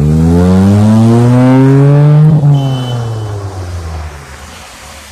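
Maruti Suzuki Alto hatchback with a loud exhaust accelerating hard past, its engine note climbing for about two seconds. A sharp crack comes at its loudest, then the note falls away and fades as it pulls off.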